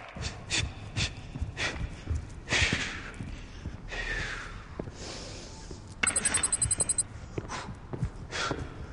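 A man's short, sharp breaths and exhalations, roughly one every second, as from exertion. About six seconds in, a rapid electronic buzzing stutter lasts about a second.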